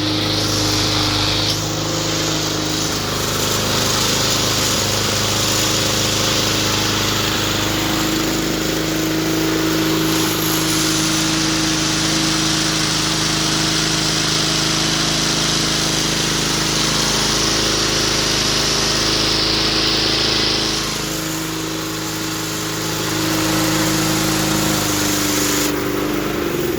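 The mower's Kawasaki FJ180V 179 cc single-cylinder four-stroke engine running steadily. It drops in level for a couple of seconds about two-thirds of the way through, then picks up again.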